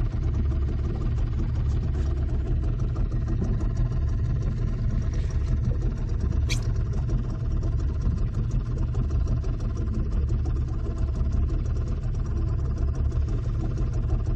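A panga's outboard motor running steadily at low speed, a continuous low rumble, with one short high squeak about six and a half seconds in.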